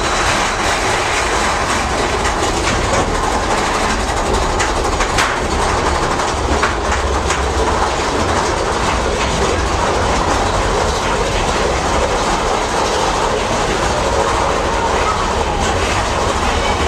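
Big Thunder Mountain Railroad's mine-train roller coaster cars rattling along the track at speed, heard from on board. A steady low rumble runs under the clatter, with a few sharp clacks about a third of the way in.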